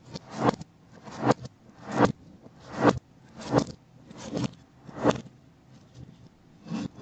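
Cooking sounds played backwards: a regular run of about nine kitchen-utensil strokes, roughly three-quarters of a second apart, each swelling up and then cutting off abruptly, as a reversed strike or scrape does.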